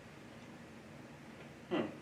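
Quiet room tone in a small room, broken near the end by one short vocal sound from a person that falls in pitch, like a brief "mm".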